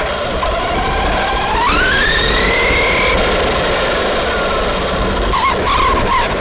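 Arrma Big Rock RC truck's electric motor whining, rising sharply in pitch as it accelerates about a second and a half in, then easing off, over a steady rushing noise.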